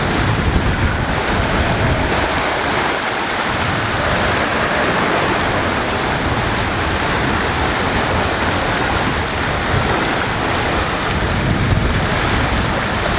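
Churning wake and breaking waves rushing past the stern of a sailing yacht running fast through choppy seas, in about 22 knots of wind. Wind buffets the microphone with a steady low rumble.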